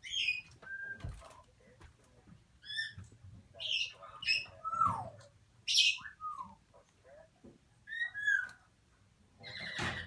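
African grey parrot chicks calling: a string of short squawks and down-slurred whistles, with a harsh, rasping squawk about six seconds in.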